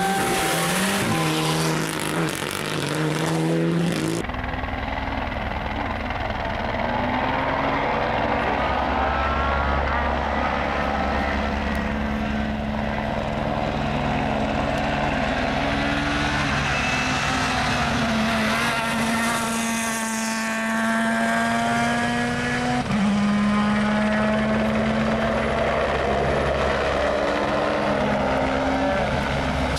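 Rally cars on a stage at full throttle, engines revving up and falling back through gear changes as they pass, across several short clips with a sharp cut about four seconds in.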